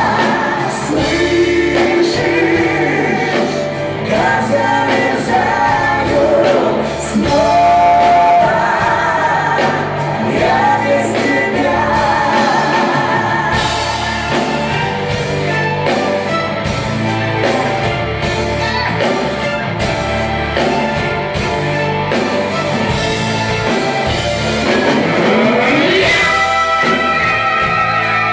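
Live band playing a slow rock ballad with sung vocals and backing vocals.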